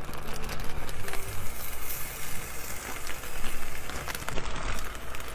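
Chopped smoked meat sizzling as it is tipped from a plastic zip-top bag into a hot stainless skillet of fat, with a steady hiss and small crackles and rustles from the bag.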